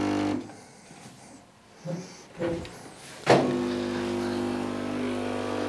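Delonghi Dedica espresso machine's vibration pump humming as it pulls a shot through pre-ground coffee that builds only about 4 bars of pressure. The hum stops about half a second in, and after about three seconds it starts again with a click and runs steadily.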